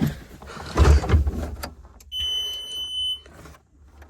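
Bobcat T650 skid steer's diesel engine cranking briefly with a short low rumble about a second in, without catching, typical of air still in the fuel line. Then the machine's warning buzzer gives one steady high beep lasting about a second.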